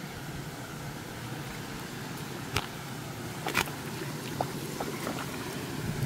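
Shallow mountain stream running over rocks, a steady rush of flowing water, with two sharp clicks in the middle.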